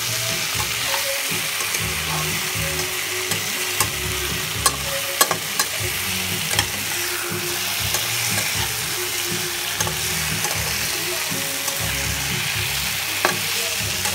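Fish, onions and tomatoes sizzling in hot oil in a nonstick wok while a spatula stirs them. The sizzle is a steady hiss, with a few sharp knocks of the spatula against the pan, clustered about four to seven seconds in and once more near the end.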